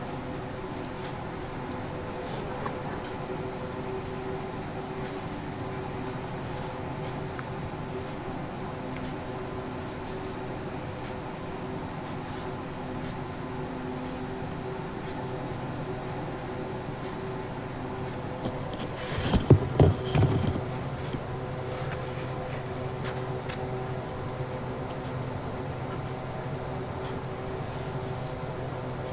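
A cricket chirping steadily: a high, evenly pulsed chirp about two to three times a second. About two-thirds of the way through comes a brief clatter of knocks.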